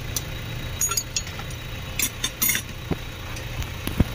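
Metallic clinks of a spanner and metal parts as the timing belt tensioner is worked loose, with a cluster of sharp ringing clinks in the middle and a couple of duller knocks near the end. A steady low hum runs underneath.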